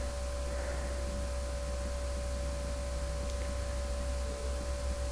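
Steady electrical hum with a constant hiss underneath: the background noise of the recording setup.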